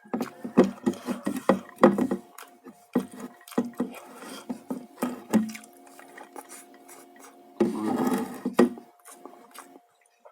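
Close-up eating and food-handling sounds: a run of short clicks, knocks and rubbing as food is picked at on the plate, with a denser busy stretch about eight seconds in.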